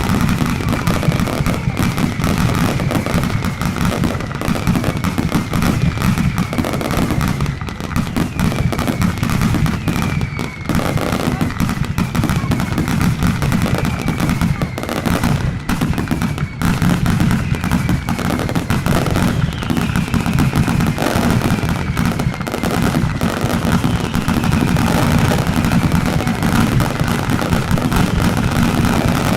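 Mascletà firecrackers going off in a dense, continuous barrage of rapid bangs. A short falling whistle repeats about once a second over the barrage.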